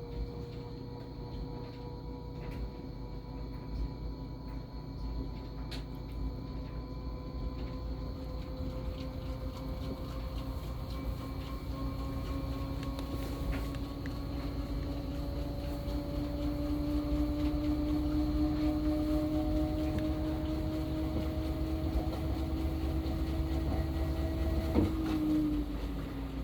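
Washing machine drum spinning up, its motor whine rising slowly and steadily in pitch over a low rumble, then dropping off sharply with a click near the end.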